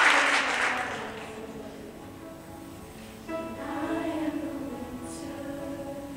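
Audience applause dying away, then about three seconds in a girls' show choir comes in singing soft, held chords.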